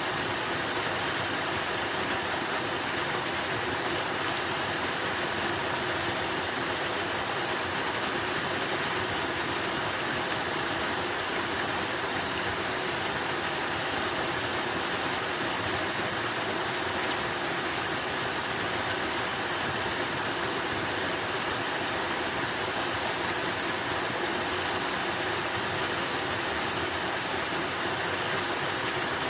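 Running water, a steady rushing with no change in level throughout.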